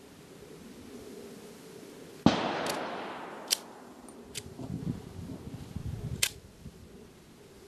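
A single pistol shot from a Steyr-Hahn M1912 firing a handloaded cartridge, about two seconds in, with an echo trailing off over a second or so. A few sharp clicks and some handling noise follow.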